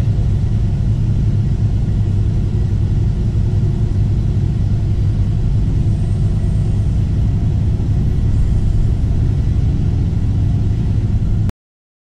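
An engine running steadily with a low, even rumble, cut off suddenly near the end.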